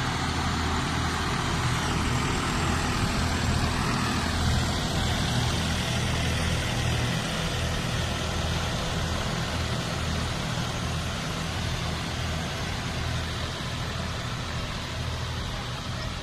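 Tractor diesel engines running steadily under load while pulling cultivators through the soil.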